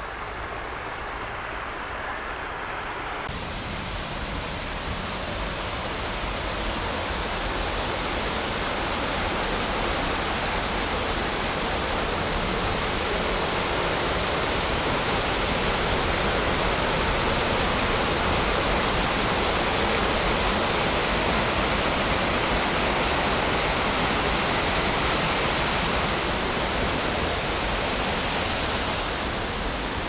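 Several small waterfalls cascading over rocks into a shallow pool, making a steady rush of falling water. It grows louder over the first ten seconds or so and eases a little near the end.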